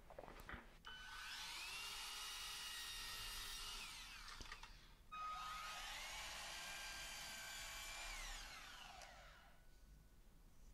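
Ferrex electric mitre saw making two short cuts through a thin wooden trim strip. Each time the motor whines up to speed, runs steadily through the cut for a couple of seconds, then winds down.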